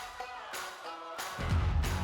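Background music with a steady beat over held tones, and a bass swell in the second half.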